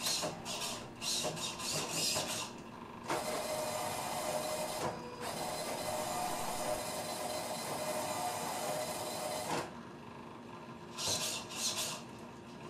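Small motors in a 3D-printed droid head whirring as they nod it and turn the dome on its ring gear. There are several short whirs first, then a steady longer run with a faint whine, then a few more short whirs near the end.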